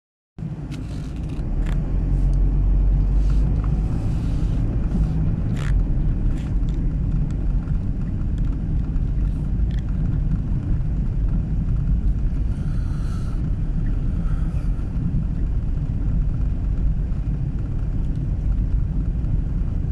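Car driving on a winter road: a steady low rumble of tyres and engine, with scattered sharp clicks and cracks in the first half.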